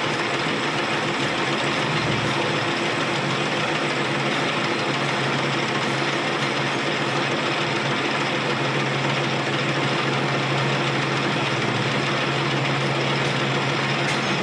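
A workshop machine running steadily, a constant motor hum under an even hiss, with no change through the stretch.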